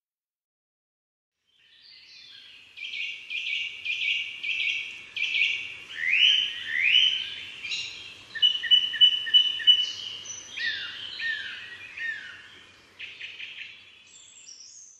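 Birdsong beginning about two seconds in: a long, varied string of chirps, quick repeated notes and short downward-sliding whistles, over a faint background hush.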